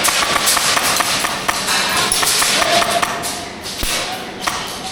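Airsoft gunfire and BB hits during close-quarters play: a string of sharp, irregular clicks and knocks.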